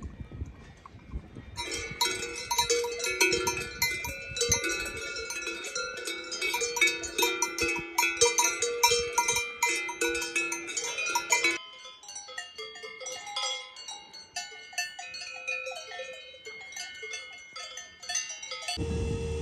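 Many cowbells clanking and ringing together on moving livestock, a dense jangle from about two seconds in that thins to a few scattered bells about halfway through. Just before the end a steady low hum with a held tone cuts in.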